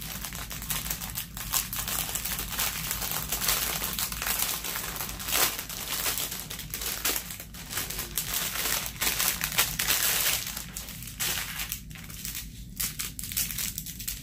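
Clear plastic packaging crinkling and rustling in the hands as a strip of small bagged diamond-painting drills is unwrapped, with many small sharp crackles.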